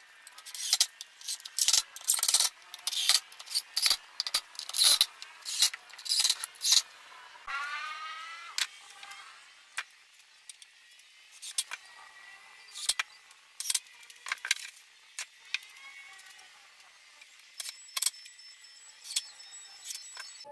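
Workshop cabinet assembly: a rapid series of sharp clicks and knocks for the first several seconds, then a cordless drill whirring up briefly about eight seconds in, followed by sparser clicks and short drill runs.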